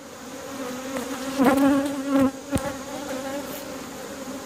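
Honeybees buzzing around an opened hive, a steady hum with a bee passing close by the microphone about a second and a half in, its buzz louder and wavering in pitch.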